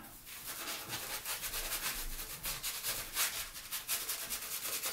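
Synthetic shaving brush face-lathering shaving soap on the cheek and chin, a quick, even run of swishing, rubbing strokes.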